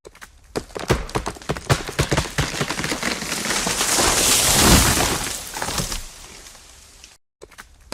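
A cut tree falling: a run of sharp wood cracks as the trunk gives way, swelling into a rushing swish of branches and a heavy crash about four to five seconds in, then dying away.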